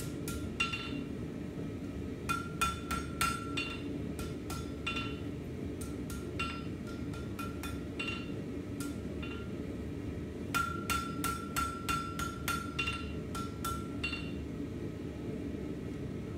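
Hand hammer striking hot steel on an anvil, hammering a scroll into the end of a bar, in short runs of quick blows with pauses between. Each blow leaves a clear ring, over a steady low background hum.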